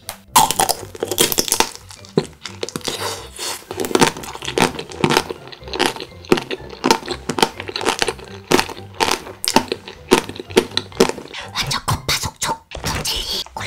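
Close-miked chewing of a soft peach-flavoured gummy jelly: wet mouth sounds with many quick, irregular clicks.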